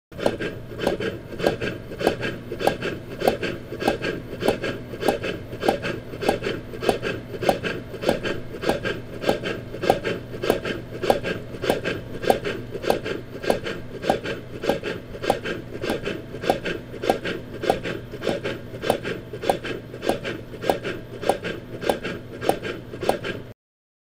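Rhythmic rasping, scraping strokes, roughly two a second in a steady rhythm, over a faint steady hum; they stop suddenly near the end.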